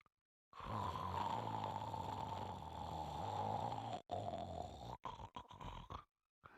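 A sleeping pet snoring: one long snore begins about half a second in and lasts some three seconds. Shorter snores follow, broken by a few brief cut-outs.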